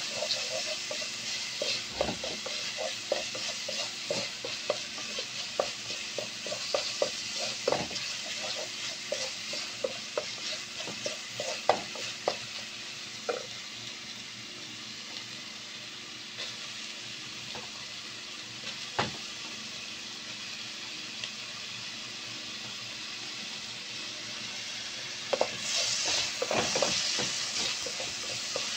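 Chopped onions sizzling in oil in a pan while a wooden spatula stirs them, with frequent scrapes and taps against the pan in the first half. About 25 seconds in, the sizzle grows suddenly louder as chopped tomatoes go into the hot pan.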